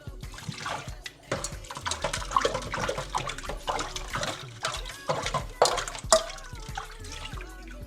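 Water running at a sink, with repeated clinks and knocks of dishes being handled.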